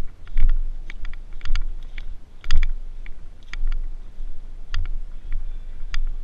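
Irregular sharp clicks and taps, about fifteen spread over six seconds, over a steady low rumble.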